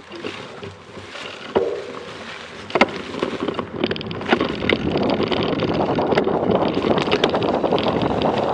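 Mountain bike ridden over a rough dirt trail: tyres rumbling, parts knocking and rattling, and wind buffeting the microphone. It grows louder and denser from about four seconds in, with a few sharp knocks before that.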